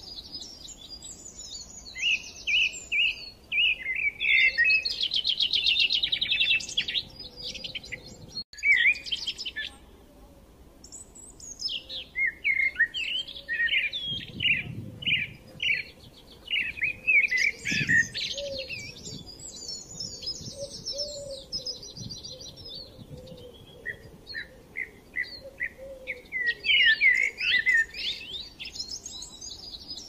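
Birds chirping: many short, high calls in quick runs and trills, with a brief quieter stretch around ten seconds in.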